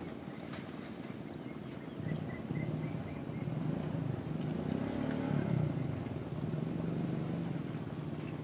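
An engine running with a steady low hum, growing louder about two seconds in and loudest around the middle.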